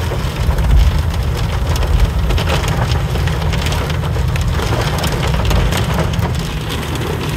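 Hail and heavy rain drumming on a car's roof and windshield, a dense, irregular clatter of hard hits over the low rumble of the car driving.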